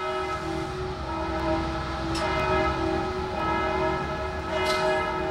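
A long, steady droning tone with many overtones, a low rumble beneath it and a couple of faint clicks.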